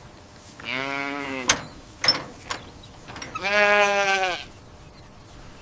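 A calf bawling twice, each call about a second long, with a few short clicks in between.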